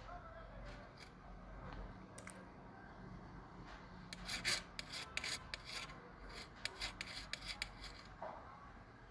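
Metal spoon scraping and clicking against a steel plate while scooping up fried rice. A quick run of sharp scrapes and clicks starts about four seconds in and stops about a second before the end.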